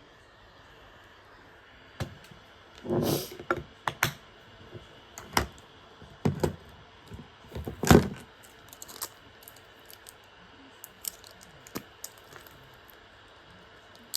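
Irregular clicks, taps and knocks of small hard objects being picked up and set down, with a louder knock about eight seconds in.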